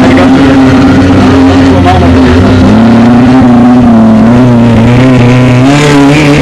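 Off-road desert race car's engine running steadily and loud, heard from inside the car. Its pitch sags slightly a few seconds in, then climbs back.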